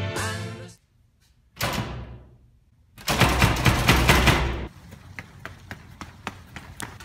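A song cuts off, then there is a single sudden crash that fades over about a second. About three seconds in comes a loud clatter lasting under two seconds as a door is pushed open. It is followed by steady footsteps on a concrete sidewalk.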